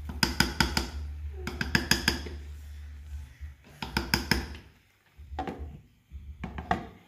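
Metal cookware clinking and knocking in several short bursts of quick strikes, as a pot of noodles is handled and covered, over a low hum.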